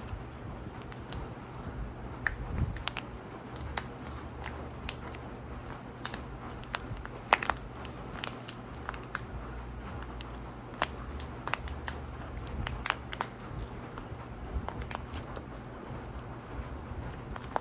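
Packaging being handled: scattered crinkles, crackles and sharp clicks at irregular moments, the sharpest about seven seconds in, over a steady low hum.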